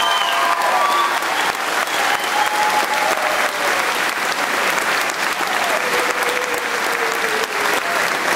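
Audience applauding steadily, a dense even clapping with a few faint voices over it.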